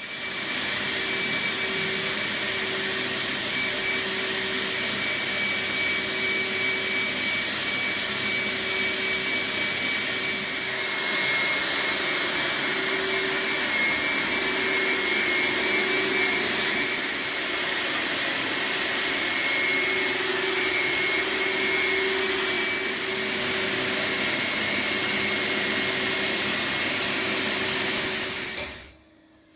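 Tornado ACS vacuum blasting unit running on a blasting cabinet: a loud, steady rush of suction air and abrasive granulate circulating through the closed cabinet, with a faint flickering whistle on top. It starts suddenly and cuts off near the end.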